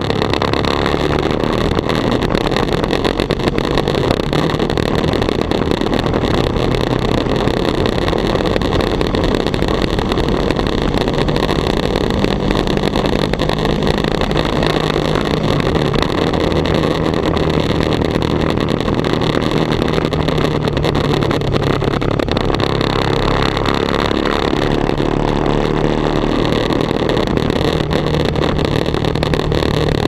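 Sport motorcycle ridden at speed: the engine's steady drone, its pitch stepping up and down with the throttle, under a constant rush of wind on the microphone that leaves the sound poor.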